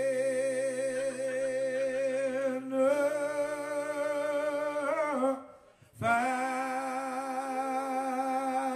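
The lead performer holds long, wavering notes unaccompanied at the close of a blues song. The first note bends down and breaks off about five and a half seconds in, and a second long held note follows.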